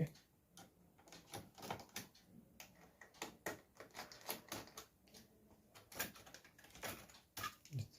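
Faint, irregular small clicks and taps of a laptop heat sink being lifted off the CPU and handled.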